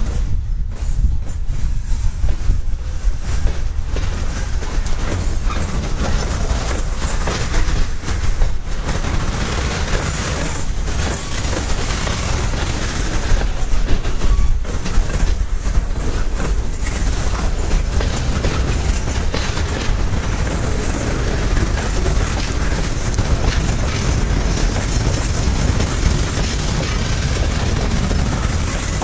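Freight cars rolling past close by: a steady low rumble of steel wheels on rail, with repeated knocks as the wheels cross rail joints.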